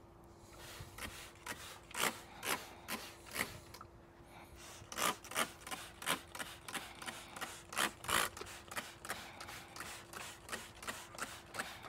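Hand trigger spray bottle spritzing liquid onto a vinyl golf cart seat in a quick series of short hissing sprays, about two a second, with a brief pause about four seconds in.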